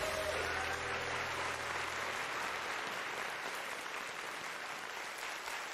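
Theatre audience applauding, slowly dying down. The last of the theme music ends right at the start.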